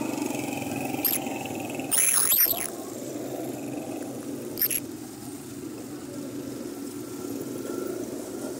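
Road traffic of motorcycles and auto-rickshaws running steadily close by. About two seconds in there is a short high-pitched squeal that wavers up and down in pitch, and there are brief sharp noises about a second in and near the middle.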